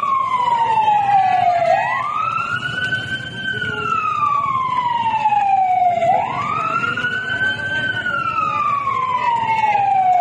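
Fire truck siren wailing: each cycle climbs quickly, then slides slowly down for about four seconds, twice over, above a steady low rumble.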